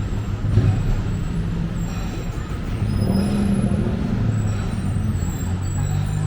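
City street traffic: motor vehicle engines running close by, a steady low hum that shifts in pitch, over a constant background of road noise.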